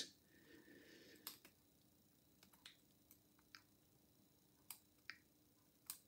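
About half a dozen faint, irregularly spaced clicks and ticks of a half-diamond lock pick and tension tool working the pins inside an Abus 65/50 brass padlock during picking.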